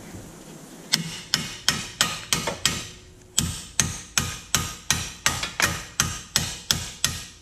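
Claw hammer striking a car's steel steering knuckle in a run of sharp metallic blows, about three a second with a short break near three seconds in, knocking the lower ball joint loose.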